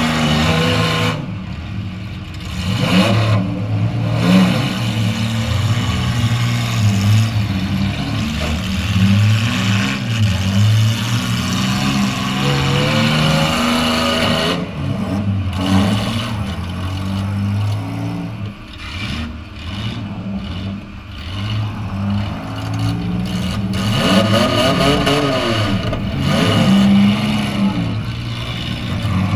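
Demolition derby car engines running, heard from inside a stripped-out derby car: a steady idle with the engine note rising and falling several times as engines are revved.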